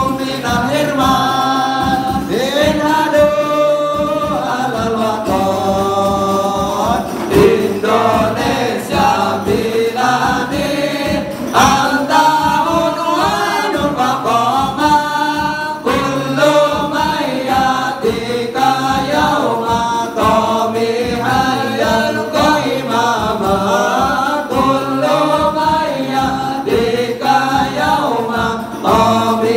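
A group of men singing a song together in unison, led on a microphone.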